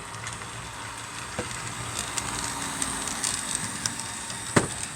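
HO scale model train running on the track after being throttled up: a steady hiss and whir with small scattered clicks, and one sharp click near the end.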